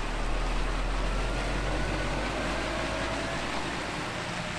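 Scania articulated lorry's diesel engine running with a low rumble as the lorry drives slowly past and away, fading slightly, with a faint whine that drifts in pitch.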